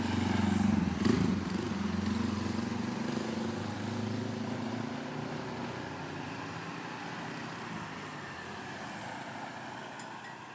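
A vehicle's engine running, loudest about a second in, then fading steadily as it moves away.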